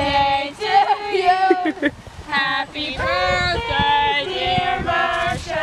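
Voices singing, held notes stepping up and down in pitch with short breaks between phrases.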